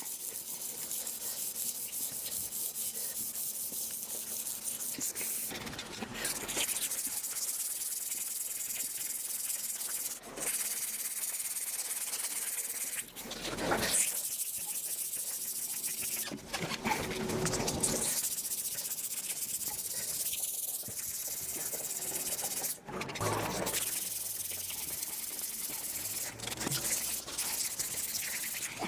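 600-grit emery cloth rubbed by hand over a 6-inch stainless-steel exhaust pipe, wetted with a little oil: a steady hissing scrape, with brief pauses every few seconds.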